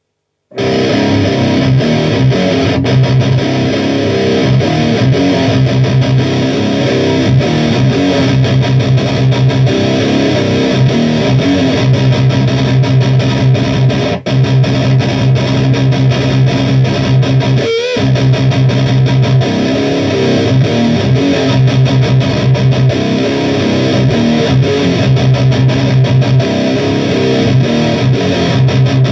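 Electric guitar played through the R&R Solo GrindCrush distortion, a thick, fat, grindy distorted tone, loud and dense throughout. It starts about half a second in, with a brief drop near the middle.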